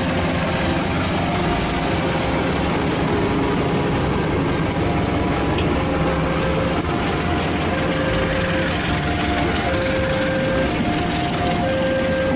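Diesel locomotive-hauled passenger train passing close by, with a steady rumble of wheels on rail. Over it, a level-crossing alarm sounds a repeating two-note electronic tone.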